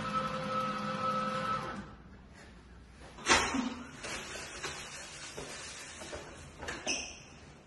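Automatic paper towel dispenser's motor whirring for about two seconds as it feeds out a towel, then stopping. A sharp snap follows about three seconds in, and paper towel rustles later on.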